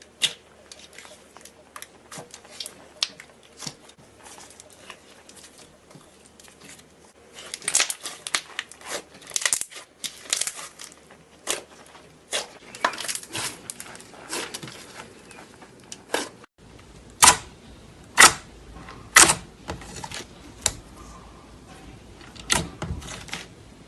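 Slime being squished and worked, giving a string of sharp clicks and pops. There are dense runs in the middle, and a few loud pops follow about two-thirds of the way through.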